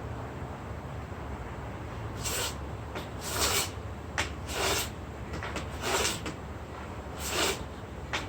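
Hand-held scrub plane set fine, shaving wood in about six short strokes, starting about two seconds in. It is taking fine finishing cuts that smooth the surface.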